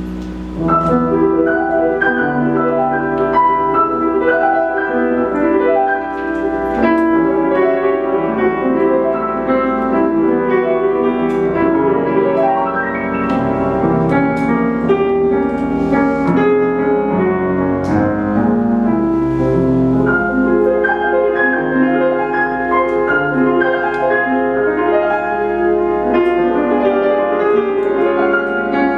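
Steinway grand piano played live: a dense, fast stream of notes ringing across much of the keyboard, softer for about the first second and then louder and steady.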